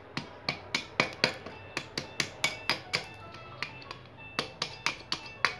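A flat metal blade repeatedly striking the woody scales of a pine cone to knock them open and free the pine nuts: quick sharp knocks, about four a second, easing briefly past the middle. Background music plays throughout.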